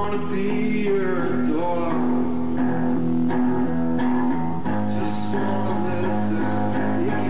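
Live band: electric guitars playing sustained chords, with a voice singing into the microphone over them.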